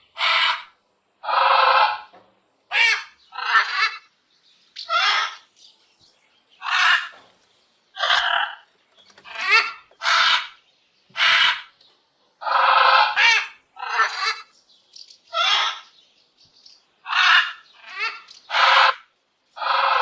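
A parrot squawking and chattering in a string of short, harsh calls, each under a second, about one every second with brief silent gaps between.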